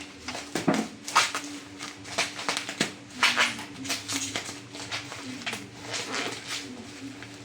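Cardboard and wrapping of a katana's packaging being cut and handled: a string of short, sharp crinkles and scrapes, with a faint steady hum underneath.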